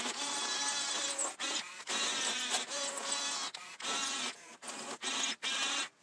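Electric drive motors and gearboxes of a 1/24 scale Diecast Masters RC bulldozer whirring in repeated short start-and-stop spurts as it drives and steers.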